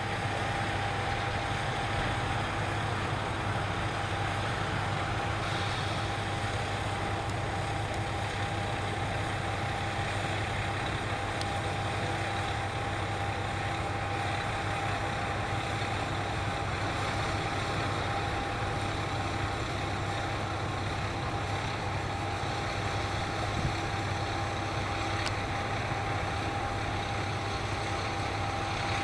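Diesel railway engine idling steadily: a low, even hum with a steady high tone above it.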